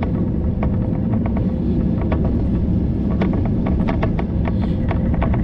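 Bicycle being ridden along a road: a steady low rumble of wind and tyres, with small irregular rattling clicks.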